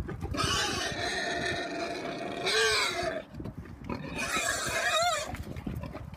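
Pigs squealing loudly while they chase each other in play. There is one long squeal of over two seconds, then a shorter one about four seconds in whose pitch wavers up and down.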